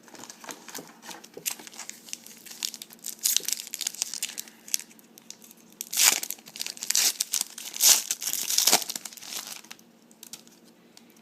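Foil trading-card pack wrapper being torn open and crinkled, with irregular crackling rustles that get loudest in bursts in the second half.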